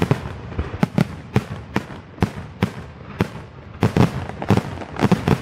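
Aerial fireworks going off in quick succession: a rapid run of sharp bangs, about two to three a second, each trailing into a low rumble.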